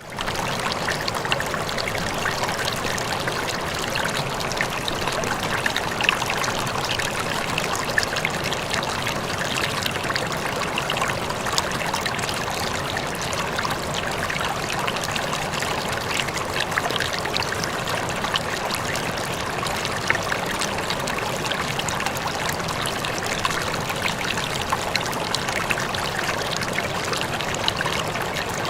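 River water flowing steadily over rocks, a continuous rushing and babbling with many small splashes and trickles throughout.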